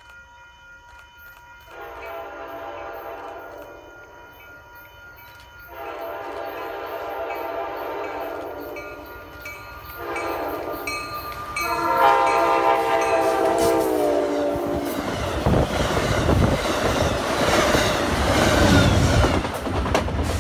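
Grade-crossing bell ringing while an Amtrak Downeaster locomotive's horn sounds three blasts, each louder than the last. The third and longest blast sags slightly in pitch as the engine reaches the crossing. The train then passes at speed with a loud rush of wheels on rail.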